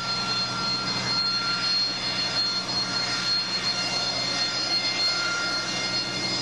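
AV-8B Harrier's Rolls-Royce Pegasus turbofan running at hover power during a vertical landing: a steady, loud jet noise with several high, whining turbine tones held over it.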